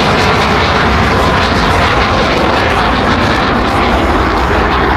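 Twin-engine F/A-18 Hornet jet flying past, a loud, steady rushing jet-engine noise.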